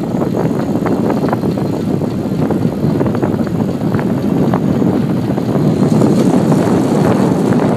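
Wind buffeting the microphone of a handcycle in motion: a steady, loud, rough rush that grows slightly louder near the end.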